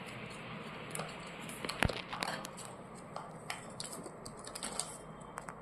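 Ringneck parrot making small, irregular clicking and nibbling sounds, with one sharper click about two seconds in.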